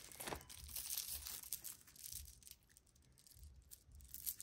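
Faint clicking and rustling of costume jewelry being handled: a gold-tone chain with plastic beads lifted from a pile, busiest in the first couple of seconds, then a few light ticks.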